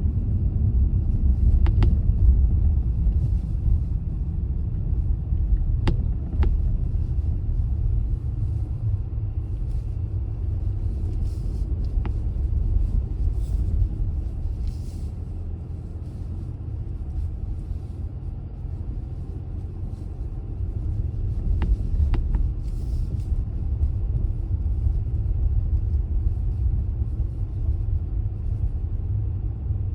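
A car driving, its steady low road and engine rumble running throughout, with a few faint clicks and brief soft hisses on top.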